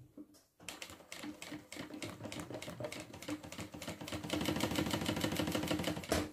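Industrial sewing machine running at a steady pace with rapid, even needle strokes as it stitches a bag's side seam through layered fabric. It starts about half a second in, gets a little louder in the second half and stops just before the end.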